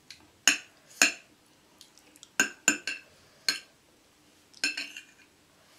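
Metal cutlery, a fork and knife, clinking and scraping against plates while cutting and eating: about eight or nine sharp, ringing clinks at irregular intervals.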